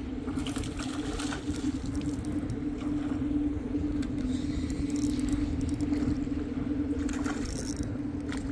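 A steady low motor hum, with a few brief splashes from a hooked largemouth bass thrashing at the surface.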